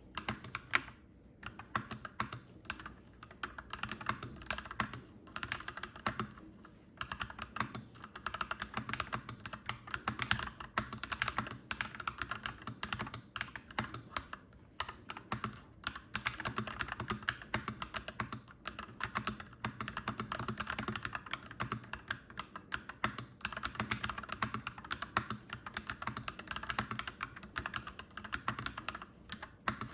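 Mechanical keyboard being typed on steadily: a clacky run of keystrokes, broken by a few short pauses.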